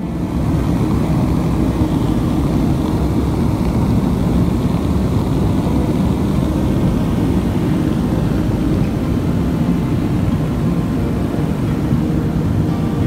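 Radial piston engines and propellers of a four-engine propeller aircraft droning steadily in flight, heard from inside the aircraft as a loud, even, low rumble.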